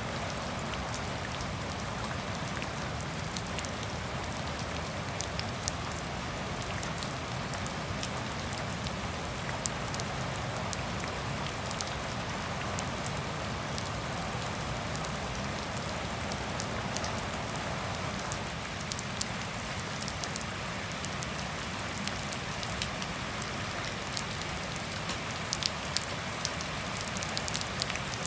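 Steady rain falling on grass and puddled pavement, with scattered sharp drop hits over it that come more often near the end.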